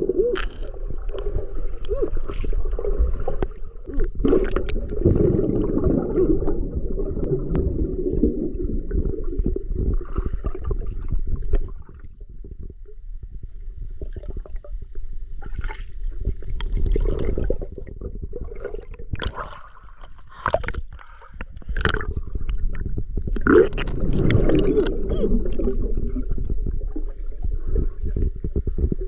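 Muffled underwater sound of a person diving and swimming: gurgling and bubbling over a low rumble, with scattered clicks and knocks. It goes quieter for a couple of seconds around the middle.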